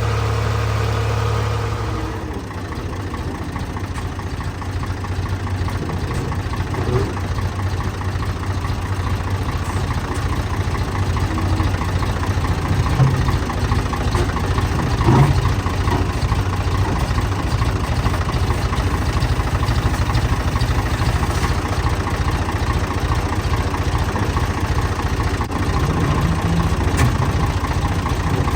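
Tractor engine running steadily. Its note drops about two seconds in, and it chugs on evenly after that. A few clunks come around the middle.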